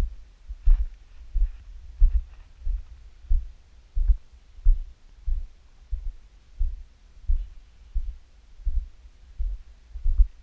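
Walking footsteps jolting a handheld camera on a pole, heard as low, regular thuds about every two-thirds of a second.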